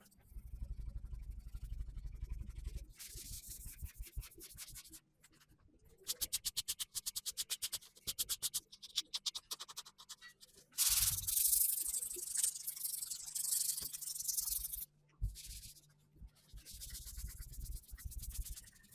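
Scotch-Brite abrasive pad rubbing down primer on the steel body panels of a VW T25 van: rapid back-and-forth scrubbing strokes in several runs with short pauses, loudest a little past halfway.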